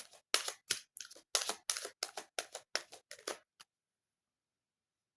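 Tarot deck being shuffled by hand: a quick run of crisp card swishes, about three or four a second, which stops about two-thirds of the way in, leaving dead silence.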